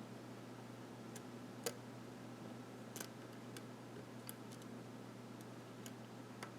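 Faint, scattered clicks of a lock pick and tension wrench working the pins of a pin-tumbler lock during single-pin picking, over a steady low hum.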